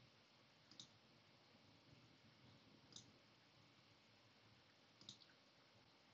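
Near-silent room tone with three faint, sharp clicks about two seconds apart: clicks of chess moves being made in an online game.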